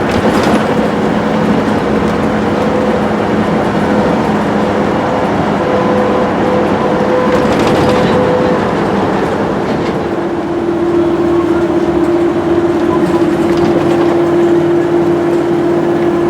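Motorhome driving at highway speed: steady road and engine rumble with a droning hum that shifts to a different pitch about ten seconds in.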